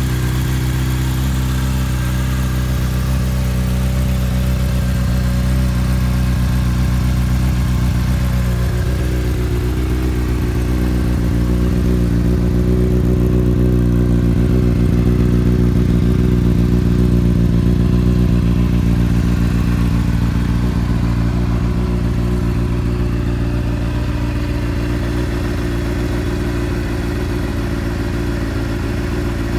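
2010 Honda CBR600RR's 600 cc inline-four idling steadily through an Akrapovic exhaust, its idle note rising slightly about nine seconds in.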